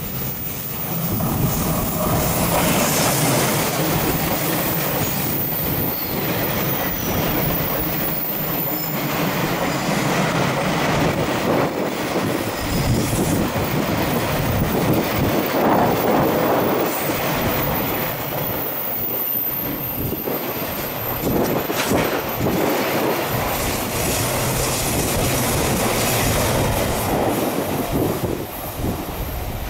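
A train passing close by on the Tokaido Line, its wheels running loud and steady over the rails. The sound builds over the first couple of seconds and holds for nearly half a minute, with some clatter about two-thirds of the way through.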